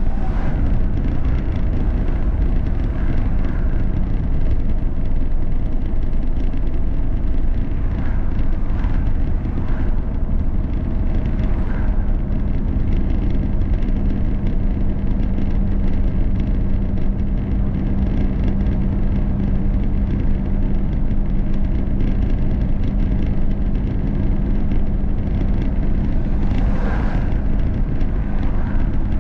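Steady road noise from inside a moving car: tyre and engine drone with a constant low hum. Oncoming vehicles swish past, once at the start and again near the end.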